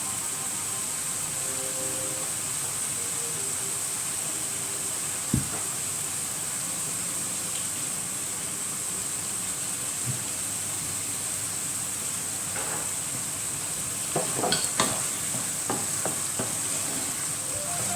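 Minced tofu sizzling in a frying pan, a steady hiss, with a utensil stirring and knocking against the pan: one sharp knock about five seconds in and a cluster of knocks and scrapes near the end.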